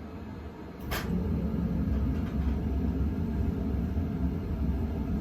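KDK Royalaire 52-inch ceiling fan running on low speed, a steady low hum and rumble. A sharp click comes about a second in, after which the rumble is steadily louder.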